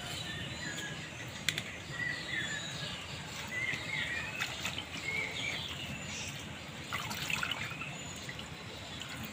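Water sloshing and dripping in a small metal bowl as handfuls of helencha greens are rinsed by hand and lifted out, with a few light knocks of the bowl.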